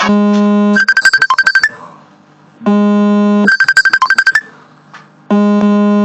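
Electronic synthesizer music: a held low note, then a quick run of short high beeping notes. The phrase repeats about every two and a half seconds, with a brief pause between repeats.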